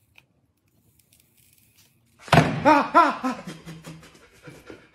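A man's sudden loud cry of pain, breaking into a rapid string of short "ah" sounds, after burning his fingertip on hot glue from a glue gun.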